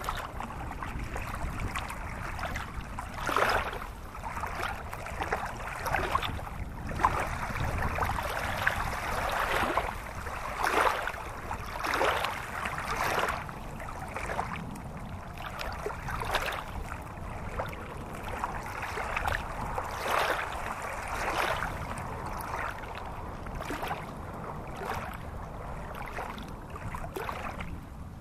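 Shallow, rocky stream rushing and splashing over stones, with louder surges at irregular moments.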